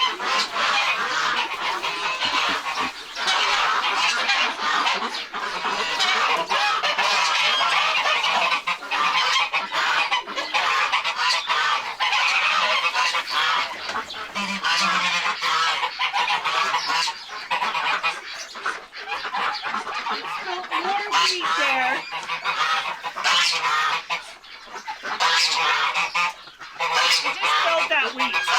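A flock of farm poultry calling continuously, many birds over one another without a break.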